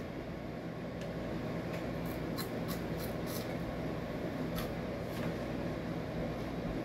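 Steady hum of room noise, with a scatter of faint, crisp clicks about two to five seconds in: the crinkle of the Flamin' Hot Cheetos bag and the crunch of a chip being eaten.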